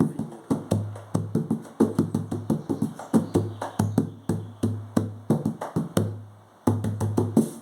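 Tantan hand drum fitted with a napa head, played by hand: a steady run of deep open tones mixed with sharper slaps, several strokes a second, with a brief pause about six seconds in. The napa head gives a lower, fuller sound with heavier bass than the leather head.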